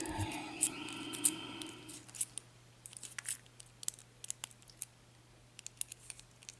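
Small sharp metal clicks and scrapes of hand tools working a lock cylinder's set screws and pins, following a steady hum that stops about two seconds in.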